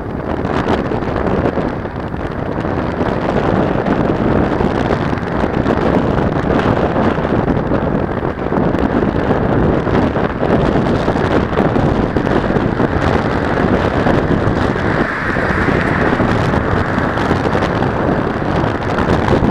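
Steady wind buffeting the microphone of a bicycle-mounted Mobius action camera while riding, a loud, even rushing noise.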